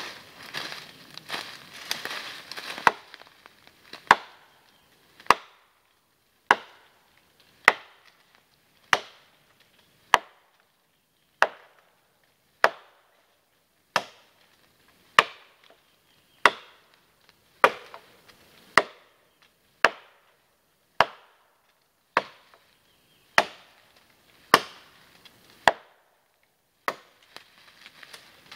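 Machete chopping into a dry, dead log: about twenty sharp strikes, evenly spaced a little over a second apart, with leaves rustling underfoot just before the first.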